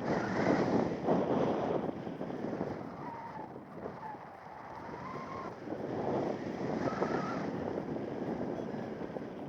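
Wind rushing across the microphone of a paraglider in flight, swelling and easing, loudest about a second in and again around two-thirds of the way through, with faint gliding whistles.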